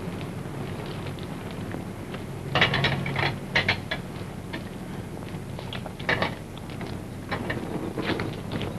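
Metal ratcheting clicks of a car bumper jack being worked to raise a car with a flat tire. The clicks come in short runs, about three times, over a steady low hum.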